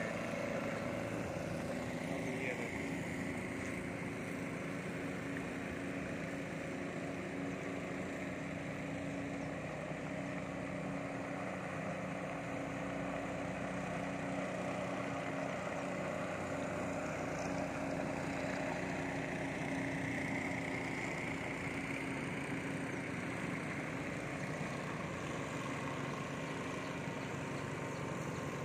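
Boat engine running steadily at a constant pitch, with water noise.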